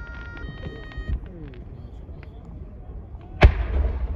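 A single aerial firework shell bursting with a sharp bang about three and a half seconds in, followed by a low rumble. Before it, a short electronic beeping tone near the start and a softer thump about a second in.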